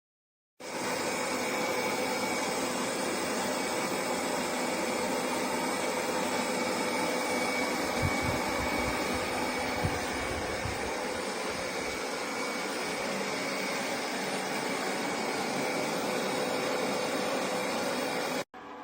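Vexilar W11 robot vacuum running: a steady rush of suction noise with a faint steady whine in it, starting suddenly and cutting off abruptly near the end.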